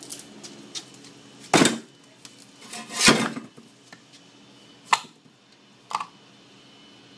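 Metal parts of a dismantled Trane scroll compressor knocking together as the motor rotor and shaft are handled and set back into the steel motor housing: four separate sharp clanks, the loudest about three seconds in.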